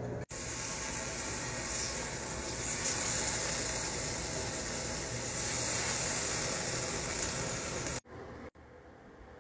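Bacon strips sizzling on a hot flat-top griddle as they are laid down: a steady crackling hiss that cuts off suddenly about eight seconds in, leaving only faint clicks.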